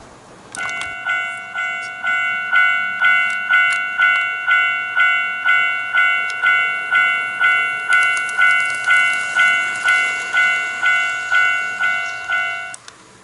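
Model level-crossing warning device on an HO-gauge model railway ringing its electronic crossing bell in the Japanese kan-kan style, a steady ding at about two strikes a second. It starts about half a second in and cuts off just before the end.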